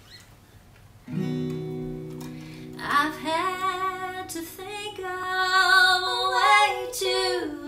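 An acoustic guitar chord rings out about a second in. At about three seconds women's voices come in singing a slow melody in close harmony over the guitar.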